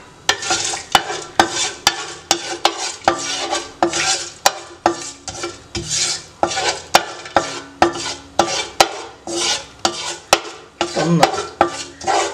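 A spoon stirring and knocking against a pot about twice a second as whole spices sauté in hot cooking oil, with sizzling underneath.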